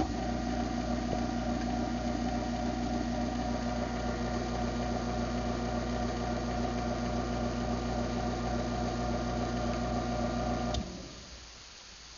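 Craftsman half-horsepower garage door opener running its motor steadily on an opening cycle, then stopping abruptly with a click near the end.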